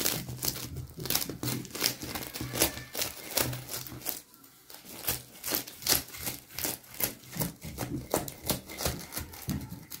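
A knife cutting through the crisp, flaky crust of a freshly baked coiled börek: a quick run of dry crackling crunches, with a short pause about four seconds in.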